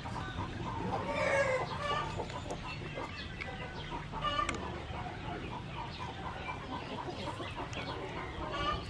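Chickens clucking, with short louder calls about a second in, again around the middle and near the end.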